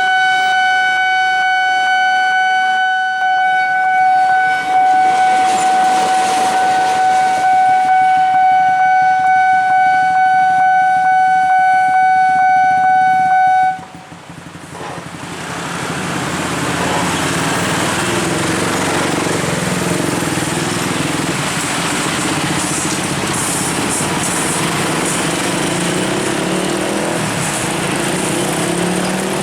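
Train horn giving one long, steady blast on a single note (the long S35 whistle signal), cutting off sharply about fourteen seconds in. Then the rushing noise of the train passing over the crossing builds up and carries on.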